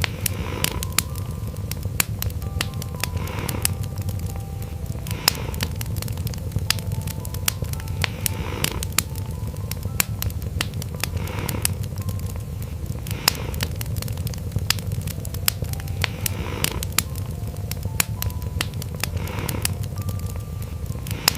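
Wood fire crackling with frequent sharp pops and snaps, over a steady low cat purr that swells softly every two to three seconds.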